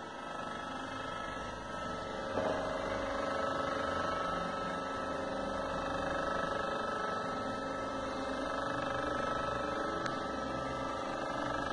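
Opened air-conditioner indoor unit running: a steady motor hum with a faint high whine, stepping up in level about two seconds in, with a light click near the end.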